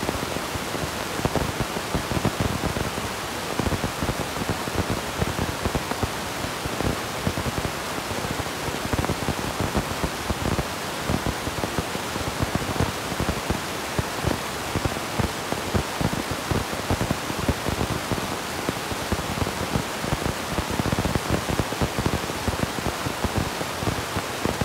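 Steady hiss with dense, irregular crackling, like static.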